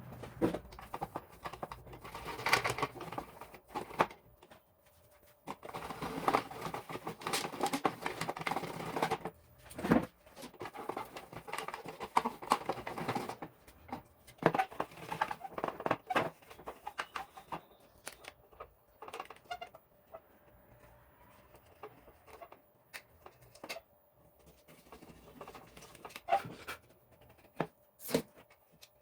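Hands working on microwave oven parts: scattered clicks, taps and scraping handling noise, busiest in the first half and sparser later.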